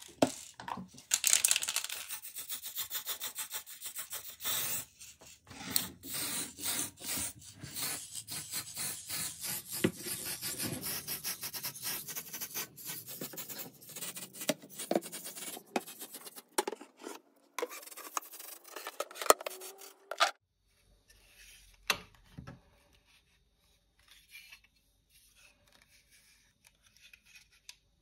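Rapid rubbing and rasping strokes, a dense run of short scrapes for about twenty seconds that grows thinner as its lower part drops away, then stops abruptly. A few faint handling knocks follow.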